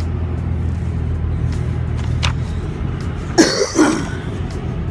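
Steady drone of a car's engine and road noise heard inside the cabin, broken about three and a half seconds in by a cough of two short bursts.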